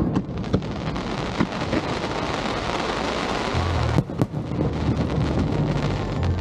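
Aerial fireworks display: a dense, continuous crackling from bursting shells, with sharp bangs just after the start and twice about four seconds in.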